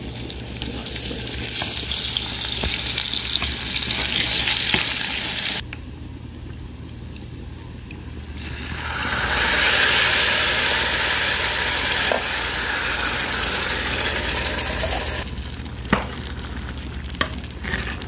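Food sizzling as it fries in fat in a pan. The sizzle drops away for a few seconds, then comes back louder, with a couple of light clicks near the end.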